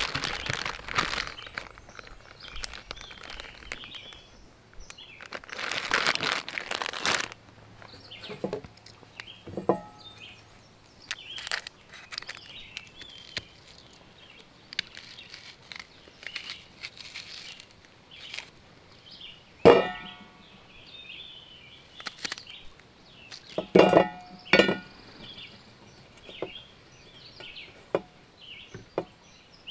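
Camp gear being handled: scattered light clinks and knocks, with two louder ringing metallic clinks about two-thirds of the way through and bouts of rustling near the start.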